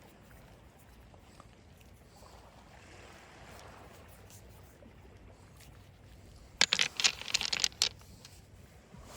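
Faint steady outdoor hiss, then about six and a half seconds in a quick run of sharp clicks lasting about a second and a half: smooth, wave-polished beach pebbles clattering against each other.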